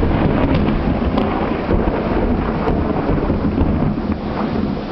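Thunder from a cloud-to-ground lightning strike, a long low rumble that carries on steadily, over falling rain.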